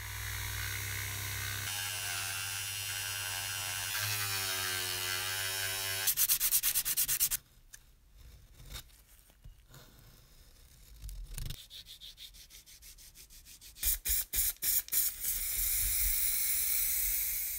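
A small electric rotary tool runs with a steady whine that shifts in pitch partway through. A quick run of loud scraping strokes follows as a small metal model-train wheel is worked against sandpaper, then a few light handling clicks. Near the end come several short bursts and then a steady hiss of spray paint going onto the wheels.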